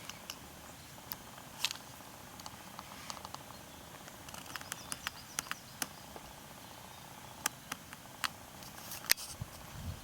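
Faint, scattered short chirps and ticks from birds calling in the distance over quiet outdoor background noise, with a sharper tick near the end.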